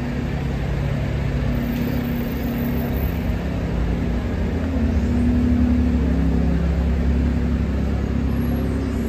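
A motor vehicle's engine running in street traffic, a low steady rumble with a hum that grows louder about five seconds in.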